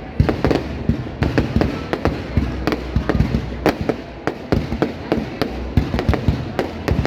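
Fireworks display: a dense run of sharp bangs and crackles at irregular intervals, several a second, over a continuous low rumble.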